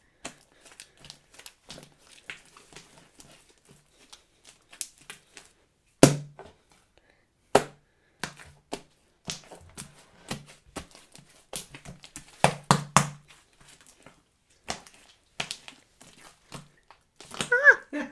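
Slime being kneaded and stretched by hand: irregular sticky clicks, pops and squelches, with the loudest pop about six seconds in and a quick run of pops a little past the middle.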